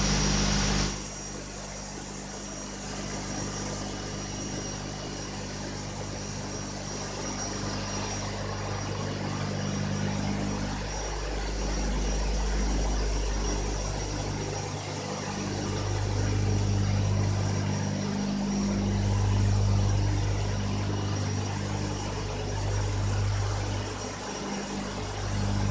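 Steam turbine-generator sets running in a power station's turbine hall: a steady low hum made of several pitches, growing louder and softer by turns, with a faint high whine over it in the first several seconds.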